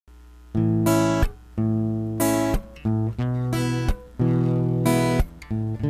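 Acoustic guitar strumming chords, a new chord struck about once a second as the instrumental intro of a song.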